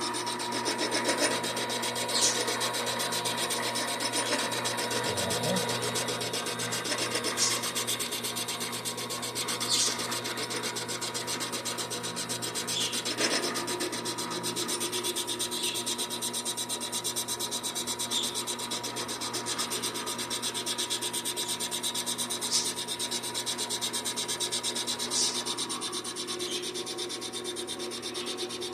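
Vevor 7x14 mini metal lathe running steadily, its cutting tool scraping across the face of an aluminum workpiece as it faces it off. A short sharp tick sounds every few seconds over the steady hum and scrape.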